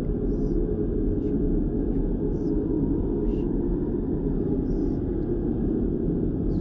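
Steady red (Brownian) noise: an even, deep hiss with most of its energy in the low end, holding a constant level throughout.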